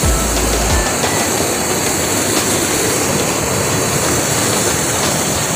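Steady, loud rush of falling and flowing water at a jungle waterfall, with a few low rumbles on the phone's microphone in the first second.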